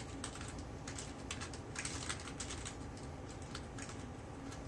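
Typing on a computer keyboard: a quick, irregular run of key clicks that thins out toward the end.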